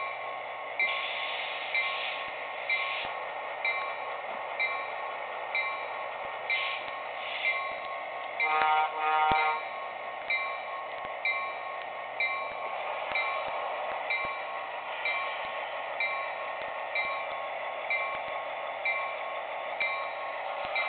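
Sound-equipped HO-scale EMD F7 model locomotive ringing its bell steadily, about once a second, over the continuous running noise of the model train. About nine seconds in, a short horn blast sounds in two parts.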